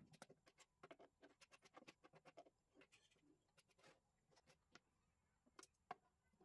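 Faint scratching of a comb drawn through a maroon thread fringe on fabric: quick dense strokes over the first couple of seconds, then sparser, with two sharper clicks near the end.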